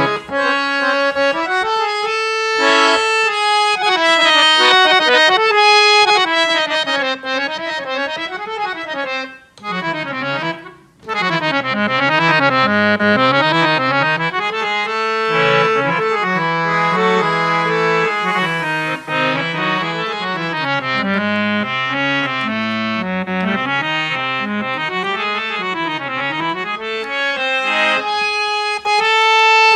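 JAMUNA student harmonium with two sets of bass male reeds being played, a melody on the keys over held reed notes while the bellows are pumped by hand. The sound breaks off briefly twice about ten seconds in.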